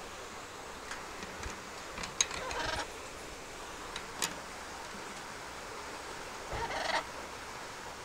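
Amazon parrot giving two short, harsh calls a few seconds apart, with a few sharp clicks between them.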